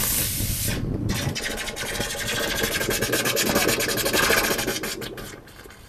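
A firework hissing as it sprays sparks, then about a second in breaking into a dense, rapid crackling that lasts about four seconds and dies away near the end.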